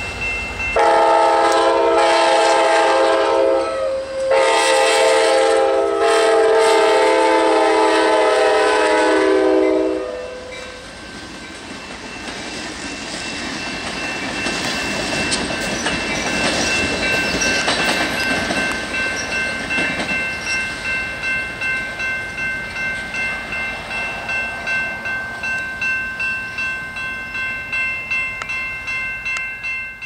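Diesel passenger locomotive's air horn blowing two long blasts, about three seconds and then about six seconds, as a steady multi-note chord. The train then rolls past with a rumble, its wheels clacking rhythmically about twice a second.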